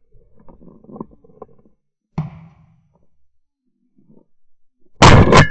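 A very loud, sharp shotgun blast about five seconds in, recorded by a camera mounted on the gun, fired at a flying grey partridge. Faint knocks and rustles and a single duller thump come before it.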